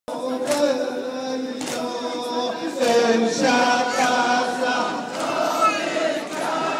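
A group of mourners chanting a noha, a Shia Muharram lament, together in long drawn-out notes. A few sharp beats cut through about once a second in the first three seconds.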